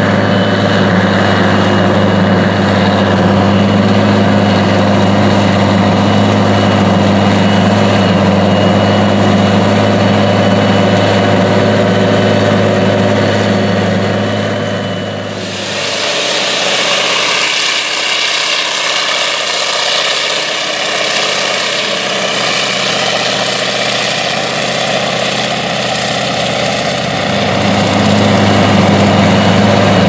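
Krone Big X self-propelled forage harvester running steadily with a low engine hum. About halfway through the sound switches abruptly to a bright, hissing machine noise without the low hum, and the hum returns near the end.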